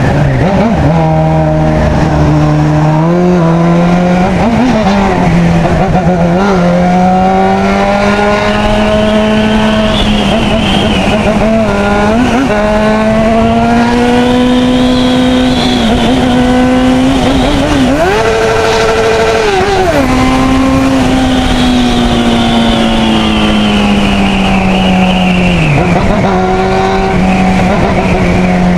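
600 cc inline-four motorcycle engine running at high revs under way, its pitch climbing and easing back with the throttle, with a few short dips, over steady wind noise.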